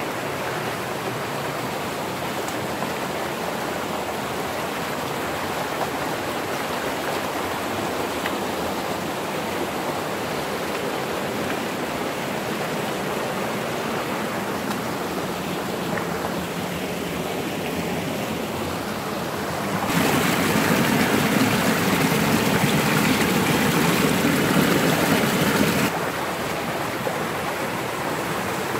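Rushing water of a shallow mountain stream running over rocks and small cascades, a steady rush. About twenty seconds in it turns abruptly louder for about six seconds, then drops back.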